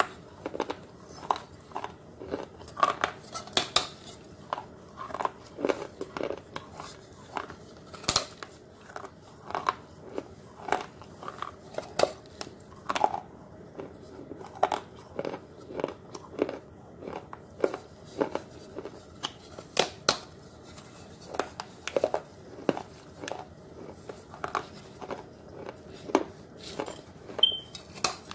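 Close-up crunching of a thin-walled clay pot being bitten and chewed: a steady run of sharp cracks and crunches, several a second.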